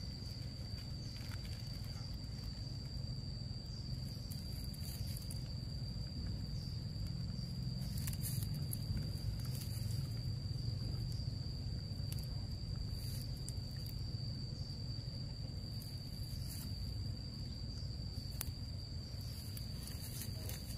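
Outdoor ambience: a steady low rumble under a continuous, high-pitched insect trill that holds one pitch throughout. A few light rustles and clicks come from the mesh sack being handled.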